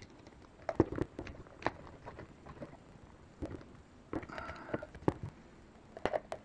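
Irregular light clicks and taps of small headset parts and screws being handled during assembly, with a short rustling scrape about four seconds in.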